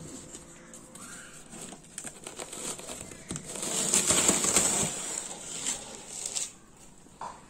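Protective wrapping around a wheel rim rustling and crinkling as it is handled and pulled about inside a cardboard box. The sound is loudest for a second or two around the middle, then dies away near the end.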